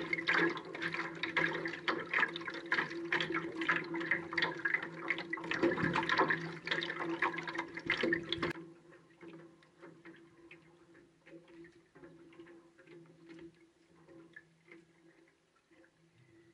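Lake water splashing and sloshing against an amphibious floatplane's float right at the microphone, over a low steady hum. About eight and a half seconds in the splashing cuts off abruptly, leaving the faint hum and light scattered ticks.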